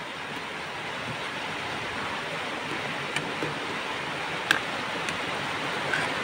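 Soup boiling in an aluminium pot with a steady bubbling hiss. There are a few light metal clinks from a ladle stirring in the pot, the sharpest about halfway through.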